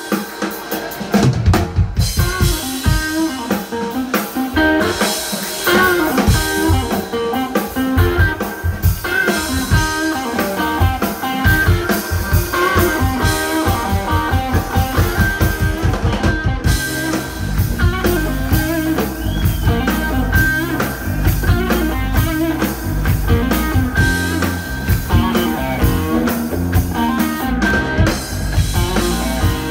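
Live blues band playing: electric guitar lines over bass guitar and a drum kit, the guitar amplified through a valve guitar amp. About halfway through, the low end fills out with a heavier, steady bass pattern.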